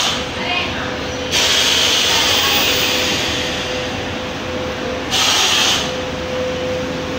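Tunnel-type transformer dipping and drying oven running with a steady machine hum and a steady tone. Hissing comes in for about two and a half seconds from about a second in, and again briefly around five seconds in.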